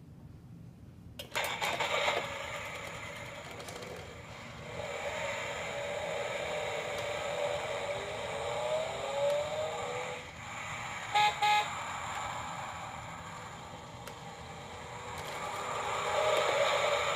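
MINI Cooper cuckoo clock's hourly sound effect: a recorded small-car engine starts about a second in and runs, revving up in rising glides, with two short horn toots about eleven seconds in.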